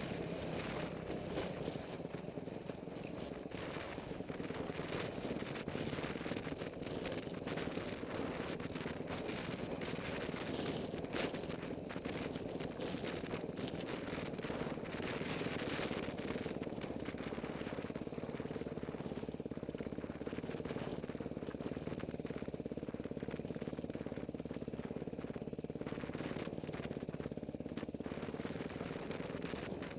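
Dirt bike engine running steadily on a rough single-track trail, its firing heard as a fast rattle, with scattered knocks from the bike working over rocks.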